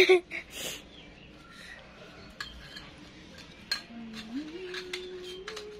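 Stainless steel tubes clinking and knocking against each other as they are handled and slotted together, in scattered sharp metallic clicks; the loudest clanks come right at the start. A low held note rises and then holds from about four seconds in.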